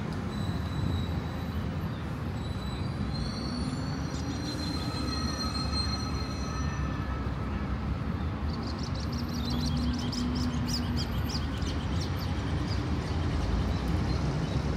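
City street traffic with a long, high-pitched squeal that wavers slightly for several seconds, then a run of short, evenly spaced high ticks.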